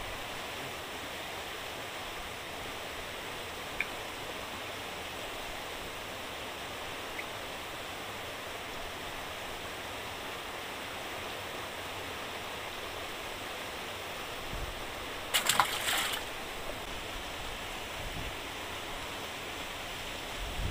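Steady rush of water pouring out through a fishpond sluice gate into the river. About three-quarters of the way through, a brief louder burst of noise rises over it.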